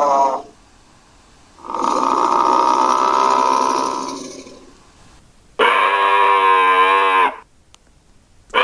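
Monocorn creature calls, pieced together from dinosaur and moose sound effects: a series of long, steady, pitched calls, each lasting about two seconds with short pauses between. The first call fades out slowly.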